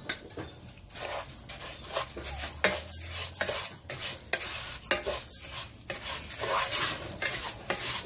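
Wooden spoon stirring raw rice in hot oil in a pot, the grains scraping and rustling against the pan in repeated irregular strokes, with a sizzle as the rice toasts.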